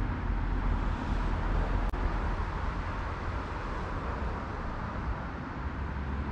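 Steady road-traffic noise, a low rumble under an even hiss, with a single faint click about two seconds in.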